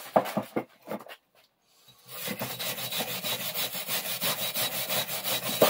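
Hand wire brush scrubbing inside the body of an old bench vise: after a few light knocks, quick back-and-forth strokes of steel bristles on the metal start about two seconds in, clearing grease, muck and rust from the inside.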